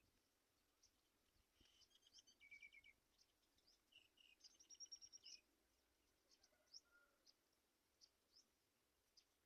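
Faint birdsong: scattered short, high chirps throughout, with two quick trilled runs of rapid repeated notes about two and five seconds in.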